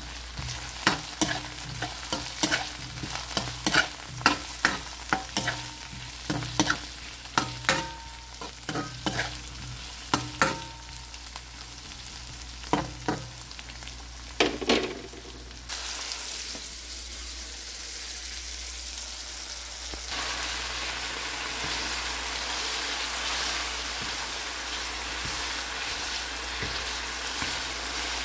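Cherry tomatoes, onions, garlic and ginger frying in oil in a honeycomb-textured stainless-steel wok. For the first half a utensil clacks and scrapes against the pan in quick strokes. After that there is a steady sizzle with no stirring, which gets louder twice, at about sixteen and twenty seconds in.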